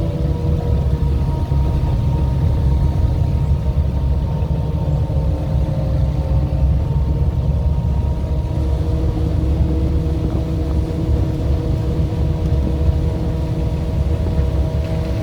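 A 4x4 vehicle's engine running steadily under a heavy low rumble, with a few held engine tones above it.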